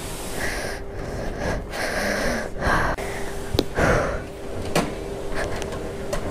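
Paper towel rubbing over a rain-wet scooter seat in several rustling strokes. Then a steady faint hum with a few short clicks.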